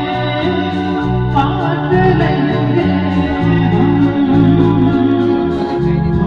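Live band music played loud through a PA system: electric guitar over a bass line that changes note about every half second, with a male singer's voice coming in about a second and a half in.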